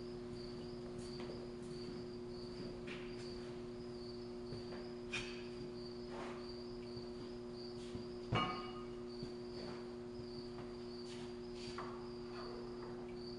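Faint high chirping repeating about twice a second over a steady low hum, with scattered light knocks and one louder knock with a short ring about eight seconds in.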